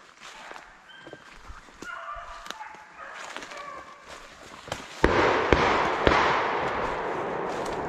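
Beagles baying in short pitched calls while trailing a rabbit. About five seconds in, three gunshots come in quick succession, a gun being emptied at the rabbit. A steady rushing noise follows the shots.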